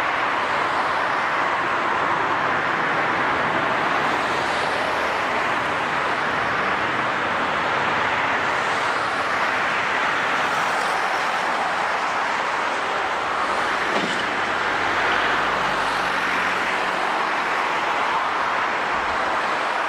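Jet airliner engine noise: a steady, even roar that neither rises nor falls.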